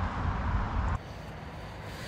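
Steady road traffic noise with a low rumble, dropping abruptly to a quieter traffic background about a second in.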